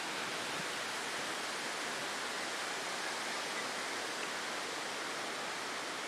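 Steady rush of a large waterfall: an even hiss of falling water that holds level throughout.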